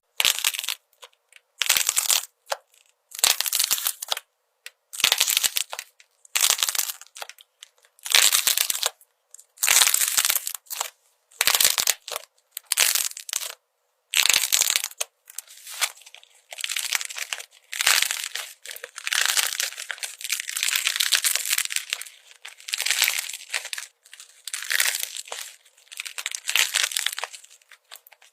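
Slime being squished and pressed, in short noisy bursts about a second apart that run together into longer stretches in the second half.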